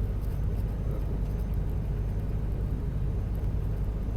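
Steady low rumble of a moving vehicle, even and unchanging throughout.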